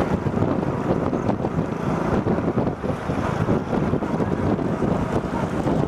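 Heavy wind buffeting the microphone of a camera travelling along a road, with vehicle noise running underneath.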